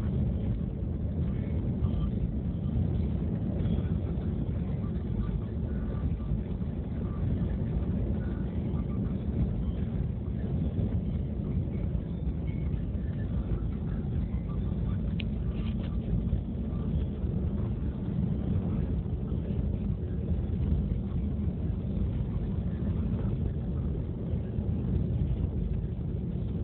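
Car driving on an unpaved dirt road, heard from inside the cabin: a steady low rumble of engine and tyres.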